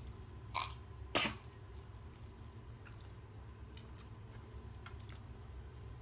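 A pet's cough: two short, sharp coughs about half a second apart around a second in, the second louder.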